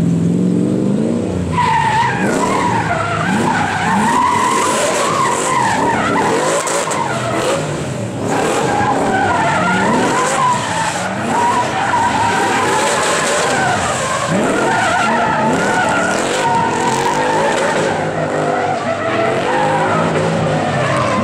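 Nissan Silvia S14 drift car sliding with its rear tyres squealing in a long, wavering high whine, the engine revving hard underneath in repeated rising sweeps as the throttle is worked. The squeal sets in about a second and a half in and stays loud throughout.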